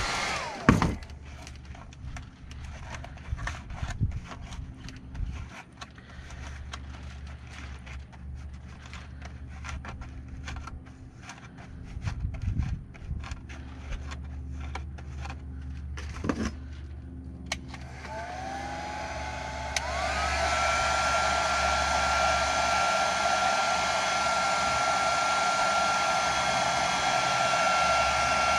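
Heat gun switched off, its fan whine falling away; then scattered clicks and knocks. About two-thirds of the way through it is switched on again, the whine rising in two steps and settling into a steady blowing hiss with a high whine, as it heats milk-jug plastic to soften it for molding.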